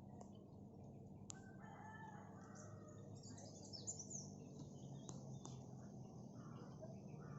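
A rooster crowing once, faintly, with small birds chirping in short high notes just after it.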